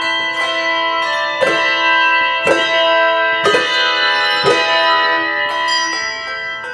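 Handbell choir playing: struck bells sounding chords that ring on after each strike, with four heavier strokes about a second apart in the middle.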